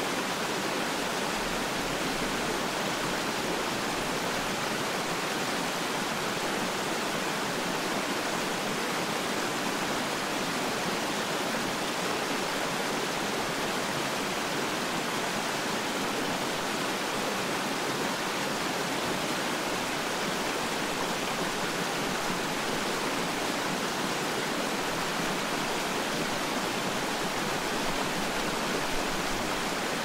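Fast-flowing stream tumbling over rocks in small cascades, a steady, even rushing of white water. It runs between close rock walls on both sides, which colour the sound.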